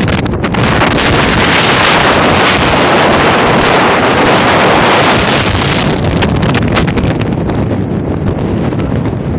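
Wind rushing and buffeting over a phone's microphone in a moving car, with road noise beneath. The rush is strongest in the first half and eases a little after about six seconds.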